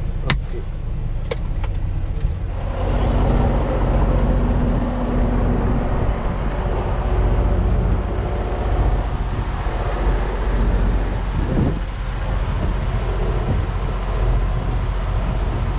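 Semi-truck's diesel engine running, a steady low rumble, with a couple of sharp clicks in the first two seconds; about two and a half seconds in the noise grows louder and stays so, with a brief thump near the end.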